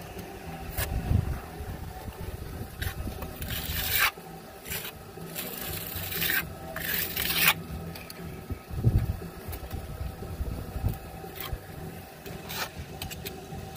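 Hand trowel scraping and spreading wet cement mortar on a wall, in a series of separate strokes.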